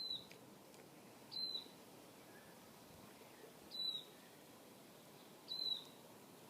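A bird calling: four short, high chirps, each sliding slightly down, spaced about one and a half to two and a half seconds apart.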